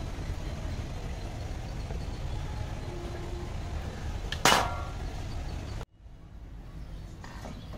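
A steady low rumble, broken about four and a half seconds in by one sharp knock of the bamboo puttu tube against the clay pot; near the end the background drops suddenly and is quieter.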